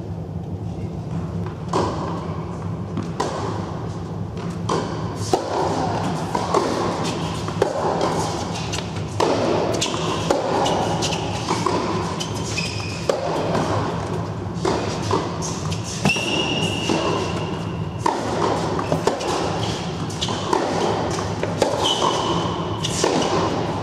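Tennis balls being struck by rackets and bouncing on an indoor hard court during rallies: a string of sharp hits at irregular intervals, echoing in the hall over a steady low hum.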